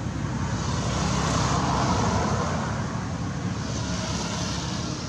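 A motor vehicle passing by, a steady noise that grows louder to a peak about two seconds in and then fades.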